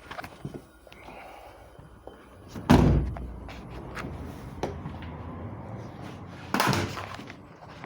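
Two sudden loud thuds about four seconds apart, each dying away over about half a second, over a low steady background.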